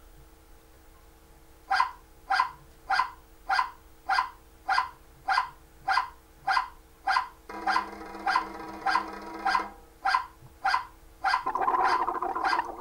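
A dog barking over and over at an even pace, a bit under two barks a second, starting about two seconds in. Twice a longer, rougher sustained sound overlaps the barking.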